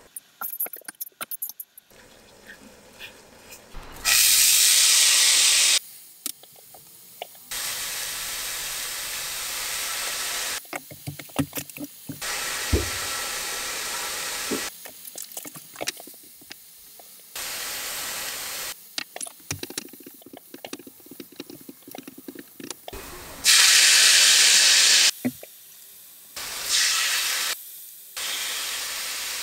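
Shredded burdock root sizzling in a hot frying pan, in several stretches of steady hiss that start and stop abruptly, two of them much louder. Light clicks and taps from a utensil fall in the quieter gaps.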